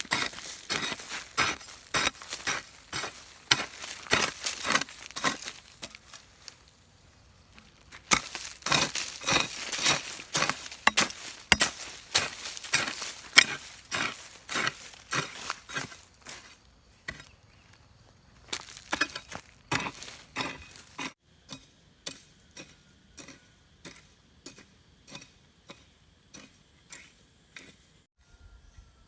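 Repeated sharp chopping or striking strokes, about two to three a second, in runs of several seconds with short pauses; after about 21 seconds the strokes turn fainter and a steady high insect-like drone comes in.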